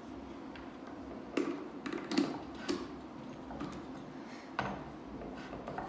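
A handful of short plastic clicks and knocks, clustered in the first half and once more later on, as an electric kettle's plug and cord are handled and pushed into the socket of a cable-reel extension lead.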